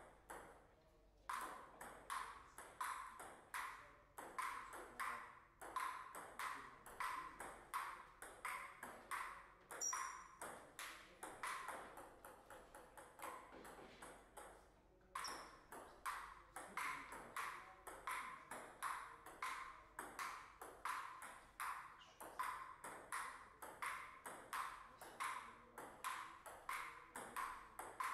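Table tennis ball clicking off paddles and the table in a rally, about two to three hits a second. The clicking stops for a moment about fourteen seconds in, then a new rally starts.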